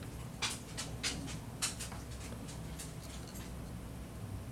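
A few small clicks and taps of hard plastic as hands adjust a transforming-robot action figure's joints, three or so close together in the first two seconds, over a low steady hum.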